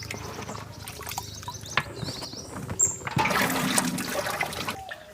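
Water splashing and sloshing, louder for a stretch in the second half, with a few short bird chirps.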